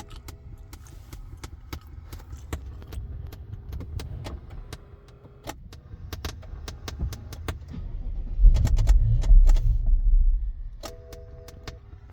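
Irregular, repeated sharp clicking from the gear selector of a 2009 BMW 7 Series (F01), an unexplained fault. A louder low rumble comes in past the middle, and steady tones at a few pitches start near the end.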